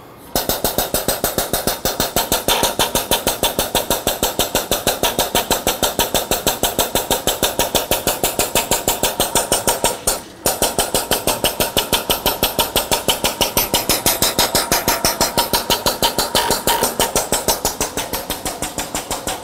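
Air-operated double-diaphragm pump running, chugging with rapid, even air-exhaust strokes about four a second, with a short stop about ten seconds in before it starts again. It is pumping the cold ethanol and wax solution into the PIG filter press.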